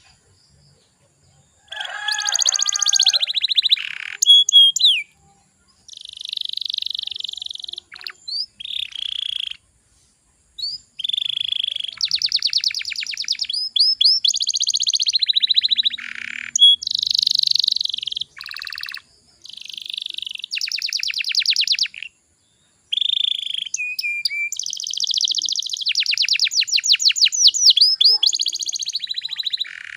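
Domestic canary singing in phrases of very fast trills and rolls, each a second or two long, with short pauses between. There are brief silent gaps near the start, about ten seconds in, and again about twenty-two seconds in.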